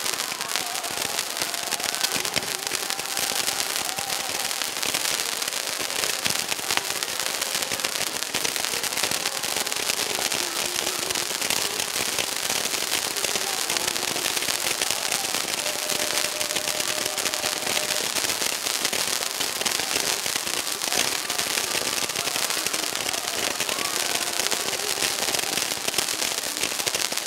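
Many toy fireworks firing at once from the ground, their sparks and small rockets going up together in a dense, unbroken crackling and hissing.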